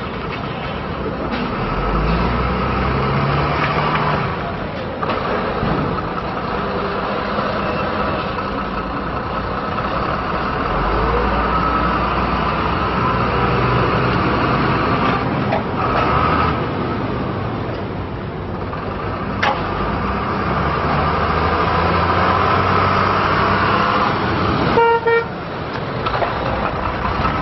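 GMC TopKick 6500 truck's Cat 3116 six-cylinder diesel engine running as the truck drives, its sound swelling and easing with throttle and distance. Near the end, as the truck passes close, its horn gives one short toot.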